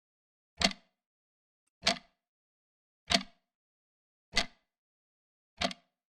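Large clock ticking: five sharp ticks, evenly spaced about one and a quarter seconds apart.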